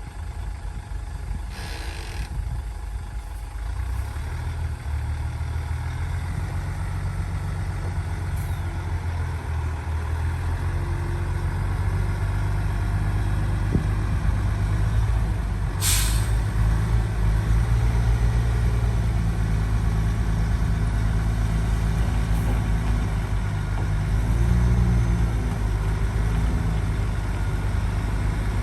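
Heavy diesel engine of an earthmoving machine running under load, its low drone growing gradually louder. Two short hisses cut in, a softer one about two seconds in and a sharper one about sixteen seconds in.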